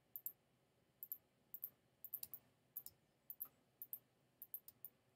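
Computer mouse clicking: short, sharp clicks, mostly in quick pairs, about every half second, as pen-tool anchor points are placed one after another.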